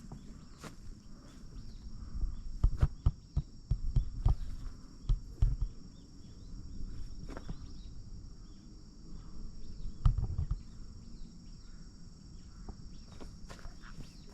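Footsteps on a forest path, a run of thudding steps with small clicks, then a few more about ten seconds in, under a steady high-pitched buzz of insects.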